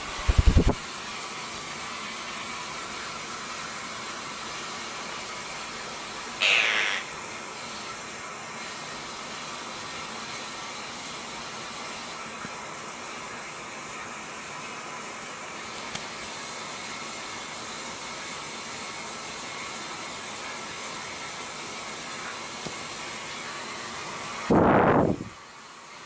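Steady background hiss, broken about six seconds in by a short, shrill call from a blue quaker parrot. Near the end there is a louder, lower sound lasting under a second, and there is a brief bump at the very start.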